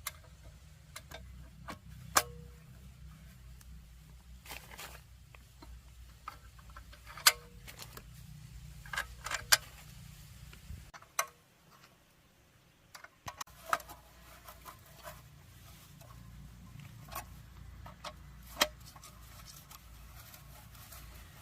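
Scattered sharp clicks and clinks of tools and engine parts being handled, a few ringing briefly, over a steady low hum that stops for a couple of seconds about halfway through.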